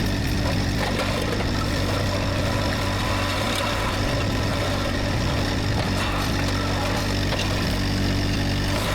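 Rippa RS06 skid steer loader's engine running at a steady speed while it drives a hydraulic mower attachment through grass.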